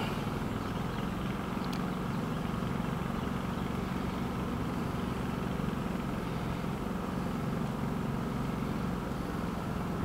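Steady low mechanical hum, as of a motor running, with a faint click about two seconds in.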